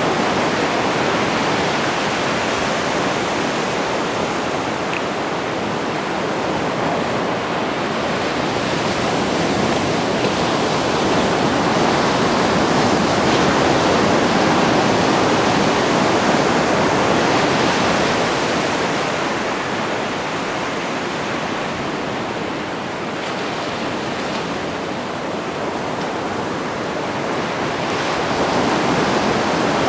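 Ocean surf washing up a sandy beach: a steady rushing that swells and eases slowly over the seconds.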